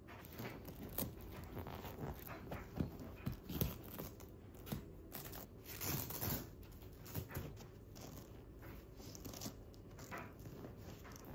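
A fabric sofa slipcover rustling and rubbing as it is tugged and smoothed over the cushions, in irregular strokes with a few sharp clicks. It is busiest in the first half.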